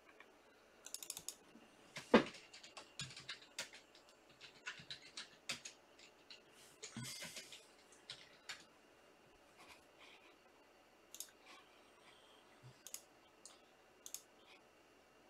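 Faint, irregular clicks and taps of typing on a computer keyboard, with one sharper click about two seconds in.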